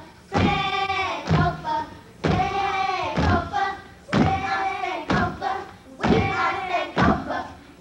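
Children's voices singing or chanting together in short phrases about every two seconds, with a thump marking the start of each phrase.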